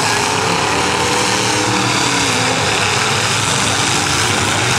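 Several demolition derby cars' engines running and revving at once, their pitches rising and falling against each other in a dense, steady din.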